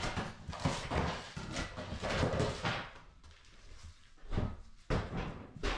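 Demolition of glued-down flooring: a run of scraping and knocking strokes as it is pried and torn up, a quieter pause about three seconds in, then a few sharp knocks near the end.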